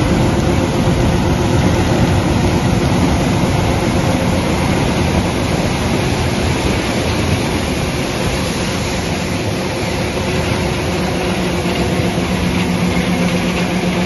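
John Deere combine harvesting corn beside a tractor and grain cart, with the engines and machinery running steadily at close range. A steady low hum grows stronger near the end.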